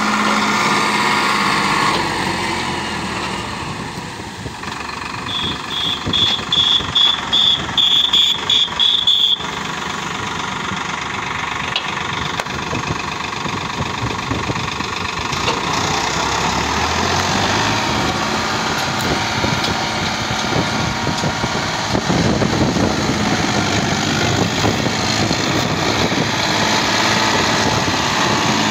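Farmtrac 60 Powermaxx tractor's three-cylinder diesel engine running as it pulls a heavily loaded trolley. For a few seconds early in the clip, a run of about ten short, high beeps sounds over the engine.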